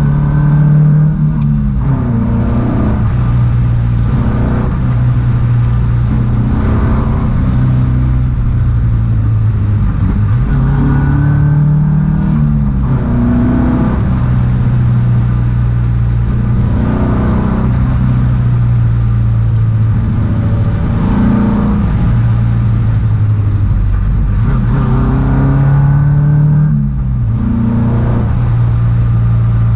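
Ford Escort Mk1 engine heard from inside the cabin, pulling on the road with the revs rising and falling again and again.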